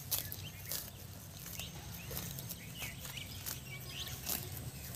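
Geese grazing, their bills pulling and tearing at grass in sharp, irregular clicks about one or two a second.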